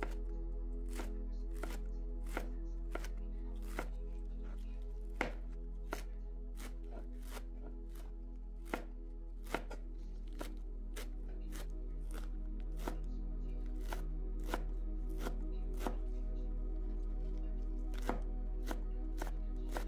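Chef's knife slicing through a bundle of fresh chives onto a plastic cutting board: a steady, even knock about every two-thirds of a second, with a few strokes landing harder than the rest.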